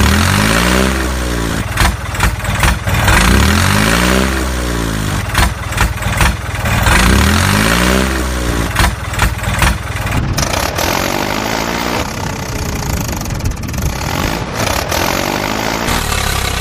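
Toy tractor's engine sound revving up and back down three times, about three seconds apart, then running more steadily, with scattered clicks and rattles.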